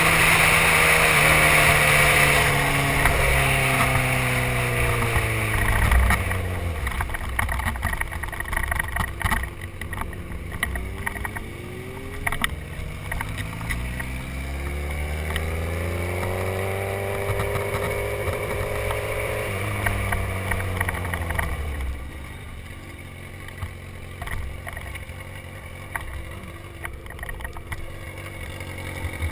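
Suzuki GSX-R1000 inline-four engine heard from the rider's helmet. Its pitch falls as the bike slows, climbs under acceleration, then drops sharply as the throttle is closed. Near the end it runs quietly at low revs as the bike rolls slowly onto the shoulder, with wind noise on the microphone.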